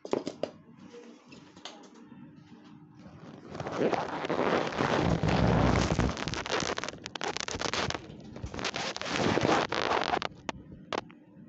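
Loud crackling, rustling handling noise close to the microphone, from about three and a half seconds in until near the end, with a few single clicks before and after it.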